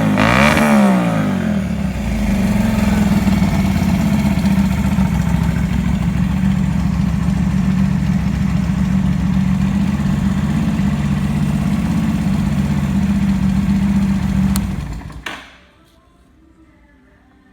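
Yamaha Drag Star 250's air-cooled V-twin running through an aftermarket gatling-style muffler: blipped up and back down about a second in, then idling steadily, until it is switched off about 15 seconds in. It runs with no abnormal noises.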